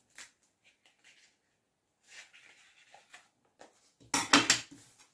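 Scissors snipping through a sheet of EVA foam in small, quiet cuts. About four seconds in comes a short, louder rustle and knock as the cut foam piece is laid down on the table.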